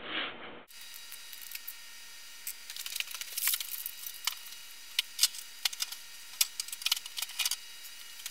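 Scattered sharp clicks and crackles from small objects being handled, over a steady hiss.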